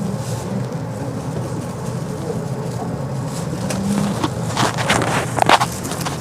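Tram running, heard from inside the passenger car: a steady low rumble, joined from about four seconds in by a run of sharp clicks and knocks.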